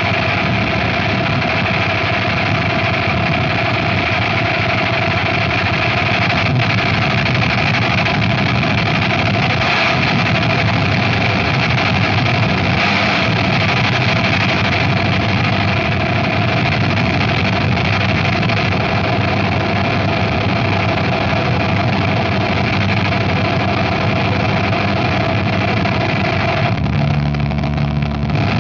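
Harsh noise wall: a dense, unchanging wall of distorted electronic noise. Near the end the low end shifts to a steadier low hum.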